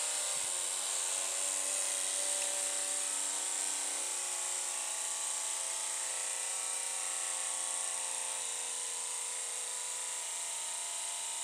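Small battery-powered electric motor spinning the propeller fan of a toy boat, a steady whine that gradually falls in pitch and loudness: it sounds like a rapidly flattening battery.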